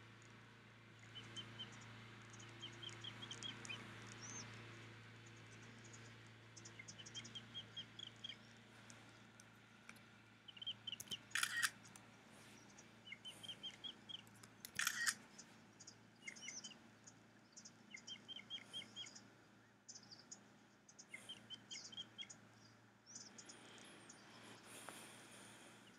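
Bird calls: short runs of five or six quick high chirps repeating every couple of seconds, with two brief, louder rasping calls a few seconds apart near the middle. A faint steady low hum lies underneath.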